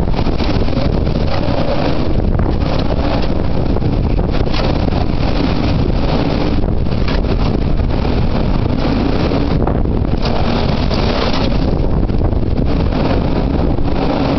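Typhoon wind buffeting the microphone with heavy surf beneath: a loud, steady rumble with gusts that swell and ease every few seconds.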